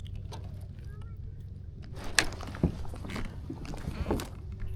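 Knocks, clicks and light splashing from a small bass being handled and unhooked in a kayak, over a steady low hum. The sharpest knocks come about two and three seconds in.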